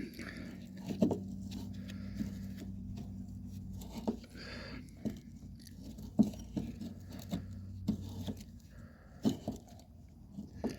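Light clicks and scrapes of hand tools working a rusted roof-rack bolt loose, in scattered irregular taps, over a faint steady hum that stops near the end.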